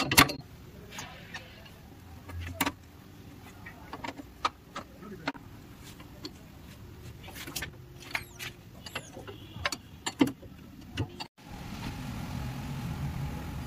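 A steel combination spanner clinking and knocking against the nut and bolt of a car's rear-axle suspension mount as the nut is worked loose, in a series of short, irregular metallic clicks. After a cut near the end, a steadier low background noise takes over.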